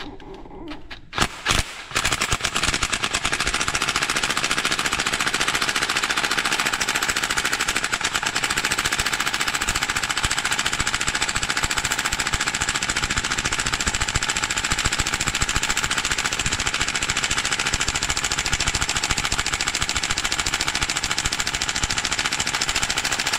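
An impact wrench hammers on a seized drain plug that has been heated with a torch to free it. It gives a few short bursts in the first two seconds, then hammers without a break for the rest of the time.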